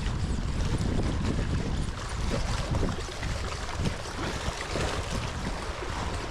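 Wind buffeting the microphone in a steady low rumble, over an even hiss of moving water.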